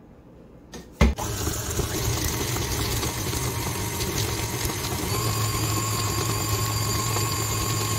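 KitchenAid Classic stand mixer switched on about a second in with a click, then its motor running steadily as the paddle attachment creams butter and sugar in the steel bowl. A thin whine joins the hum about halfway through.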